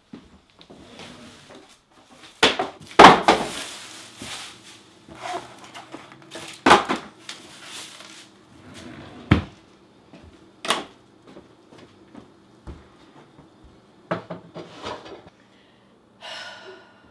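Wooden kitchen drawers and cupboard doors being pulled open and knocked shut, a string of sharp knocks spread through, the loudest about three seconds in, with items being rummaged between them.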